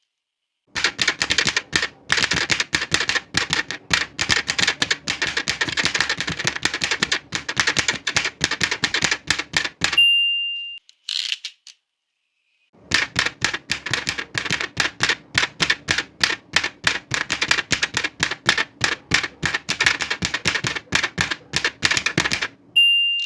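Old manual typewriter being typed on: two lines of rapid key strikes. Each line ends with the margin bell dinging once, then a brief carriage-return slide.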